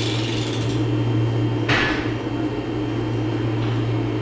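A steady low mechanical hum, with a short scraping noise about two seconds in.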